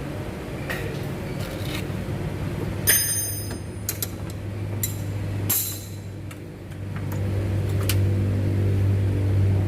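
A steady low engine-like hum that grows louder in the last few seconds, with scattered sharp metallic clinks and taps, one of them ringing briefly about three seconds in.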